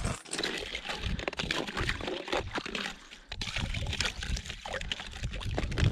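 A wooden stick stirring slush and ice in an ice-fishing hole, with wet sloshing and many small crackles.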